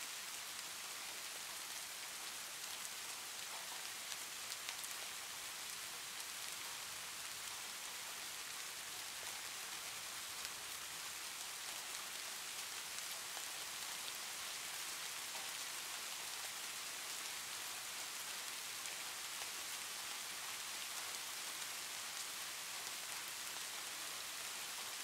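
Soft rain ambience track: a steady hiss of falling rain with faint scattered drop ticks.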